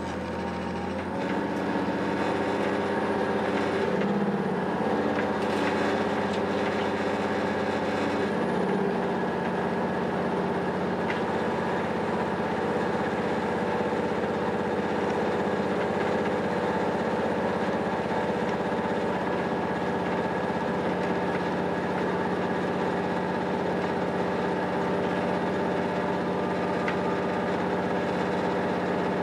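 Diesel engine of an SNCF B 81500 (AGC) railcar running, heard from on board. It grows louder in the first couple of seconds and its engine note shifts a few times in the first nine seconds, then it runs steadily.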